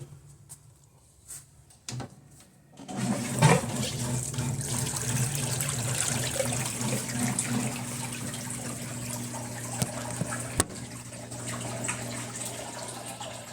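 Electrolux LT11F washing machine's electric drain pump running and pumping water out, a steady rushing of water over a low motor hum that starts about three seconds in after a quiet start with a few faint knocks.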